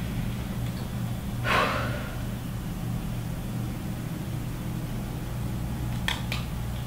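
A woman's heavy, irritated sigh about a second and a half in, over a steady low hum. Two quick clicks follow near the end.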